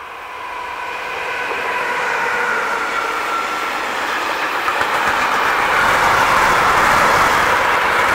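Electric locomotive hauling a container freight train, approaching and passing close by. A steady high tone from the locomotive grows louder over the first few seconds, then gives way to the loud, steady rolling noise of the container wagons going past.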